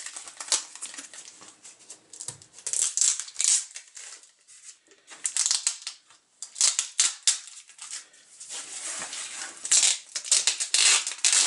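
Packing tape being peeled off cardboard backing boards by hand, with rustling and scraping of the cardboard, in irregular scratchy bursts.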